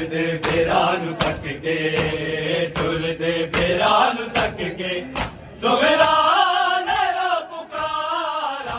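Men chanting a noha (lament) together, with sharp, evenly timed slaps of hands on chests (matam) about every three-quarters of a second. From about six seconds in, a louder chanted phrase from a group of voices rises over the crowd.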